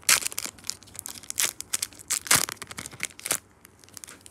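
Foil booster-pack wrapper being torn open and crinkled by hand, in sharp crackly bursts, loudest right at the start and again a little over two seconds in, fading out near the end.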